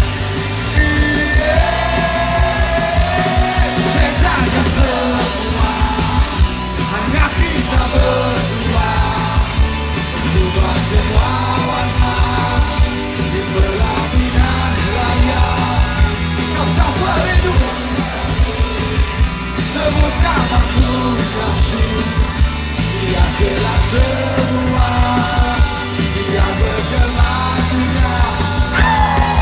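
Live rock band playing through a concert PA, heard from the audience: electric guitars, bass and drums, with a man singing over them.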